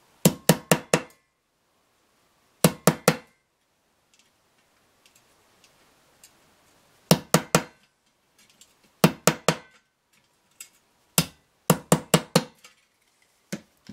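A small hammer tapping a brass picture-hook tack pin through a thin metal tin lid set on a wooden block, punching holes. The taps come in quick groups of three to five, about four a second, one group per hole, with short pauses between. A few single taps come near the end. The pin goes through easily.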